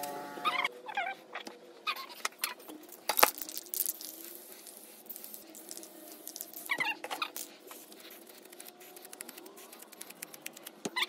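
Aerosol spray paint cans being handled and sprayed: scattered sharp clicks and short hisses, with a few brief, wavering high squeaks.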